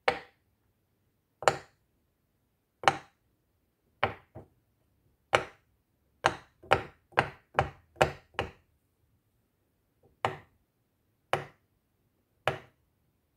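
Silicone pop-it fidget toy's bubbles being pushed through one by one with a pencil, each giving a single sharp pop. There are about fifteen pops, mostly a second or so apart, with a quick run of six in the middle.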